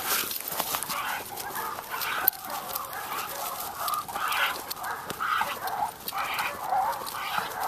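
Hog-hunting bay dogs barking over and over in short, repeated calls: the sound of dogs holding a group of hogs at bay.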